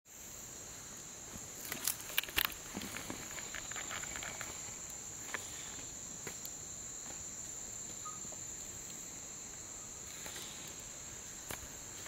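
Steady high-pitched chorus of rainforest insects, one unbroken shrill tone. A few short sharp taps sound around two seconds in and once or twice more later.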